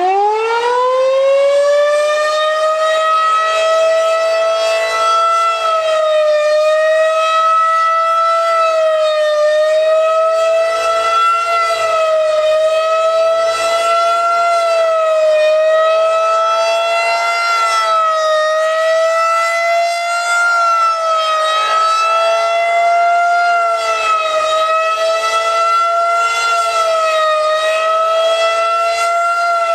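Federal Signal 2001-130 electromechanical tornado siren sounding in fast wail during a test. It finishes winding up to full pitch in the first second or two, then holds a loud, steady tone that wavers slightly up and down every few seconds.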